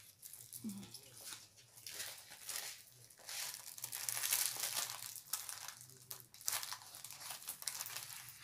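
Plastic film crinkling and rustling irregularly as a rolled diamond painting canvas is unrolled and handled.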